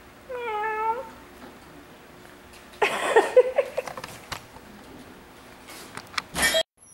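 Domestic cat giving one short meow about half a second in. A brief murmur of voice follows a few seconds later, and a few clicks come near the end.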